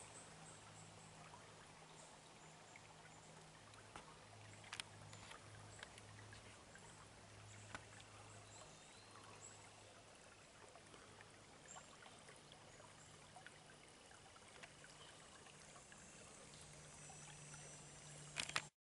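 Near silence: faint woodland ambience with a soft trickle from a low brook, a few faint clicks, and a sharper handling click just before the sound cuts off near the end.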